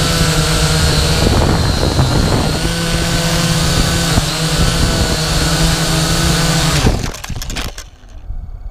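FPV drone's electric motors and propellers whining loudly, the pitch shifting with the throttle, heard through the onboard camera. About seven seconds in, the drone crashes into the grass: a quick run of knocks and clatter, and the motors cut out.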